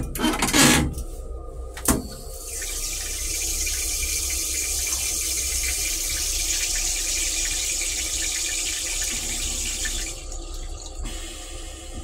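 Metro-North M3 railcar toilet flushing. A few sharp knocks come first, then a steady rush of water runs for about seven seconds and eases off about ten seconds in, as the stainless steel bowl empties and refills with blue flush fluid.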